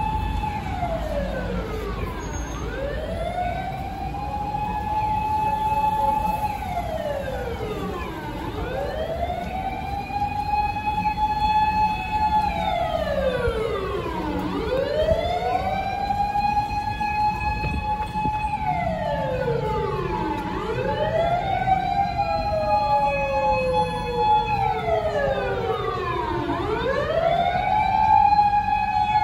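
Japanese fire engine sirens wailing: each rises slowly, holds a steady high note for a few seconds, then falls away, about every six seconds. A second siren, out of step with the first, can be heard in the last third, with low traffic rumble underneath.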